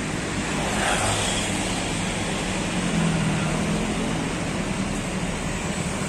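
Street traffic with motor scooters passing close by over a steady road noise, their engine hums rising and fading one after another.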